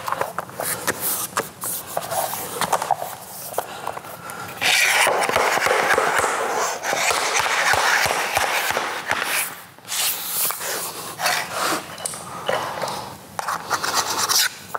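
Vinyl planks being handled and fitted together: scattered knocks and clicks, then a loud stretch of rubbing and scraping with a quick run of about three taps a second, as the locking edges are tapped home with a tapping block.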